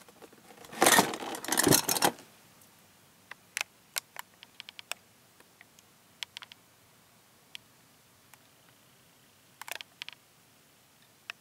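Handling noise: a burst of rustling and knocking about a second in, then scattered light clicks and ticks.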